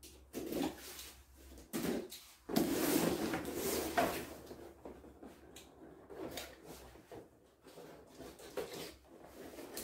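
Cardboard box being cut open with a utility knife and handled: irregular scraping and rustling of cardboard with a few knocks, busiest about two and a half to four seconds in.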